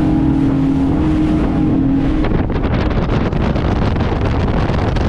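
Outboard-powered Sea Hunt Gamefish 30 center console running at about 50 mph, its engine drone steady under a rush of wind on the microphone. A little over two seconds in the engine tone drops away and rough, gusty wind buffeting takes over.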